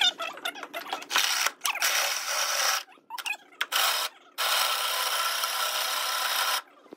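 A power tool running in three short bursts, each starting and stopping abruptly, the last about two seconds long, after a few light clicks.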